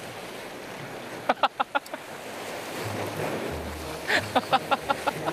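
Sea waves washing against a rocky shore, with wind on the microphone. This is broken twice by quick runs of short, sharp sounds: once about a second in, and again near the end.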